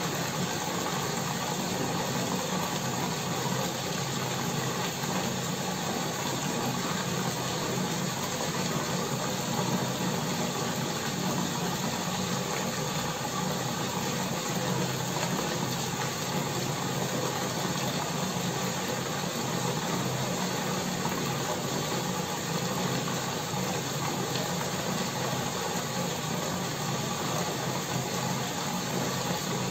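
Steady fizzing hiss of air bubbles streaming up through the water column of a DIY bubble-wall fountain, fed through an air stone, with the even hum of the air pump underneath.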